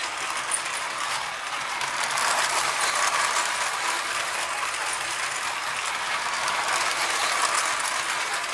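Small electric motor and gears of a battery-powered remote-control toy metro train whirring as it runs on plastic track. A steady, fine rattling clatter from the wheels and gearing runs throughout.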